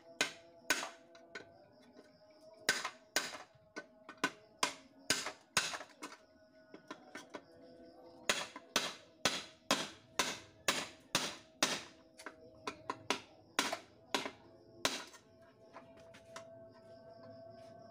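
Hammer blows on the metal insides of a scrap rice cooker being broken apart. The sharp metallic strikes come about two to three a second, each with a brief ring, and stop about fifteen seconds in.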